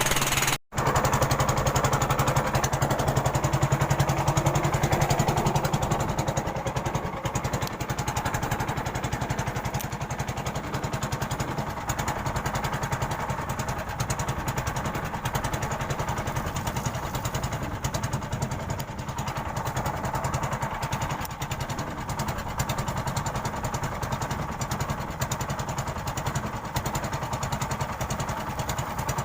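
A small engine running steadily, with a rapid even pulse. The sound cuts out briefly just under a second in.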